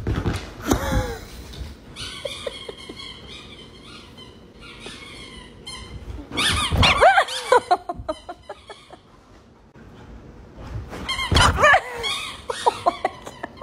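Golden retriever vocalizing: three bursts of whining with rising and falling pitch, near the start, around the middle, and near the end.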